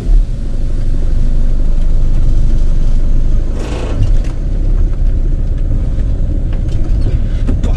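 Camper van's engine running with a steady low rumble, with a brief hiss about three and a half seconds in.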